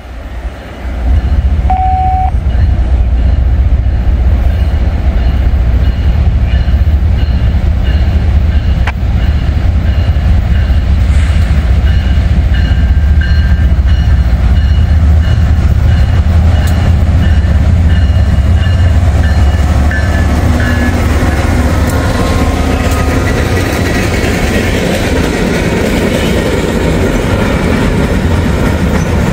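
Freight train led by BNSF diesel locomotives approaching a grade crossing with a steady low rumble, a crossing bell ringing faintly over it. Toward the end the hopper cars roll past close by, their wheels clattering on the rails and growing louder.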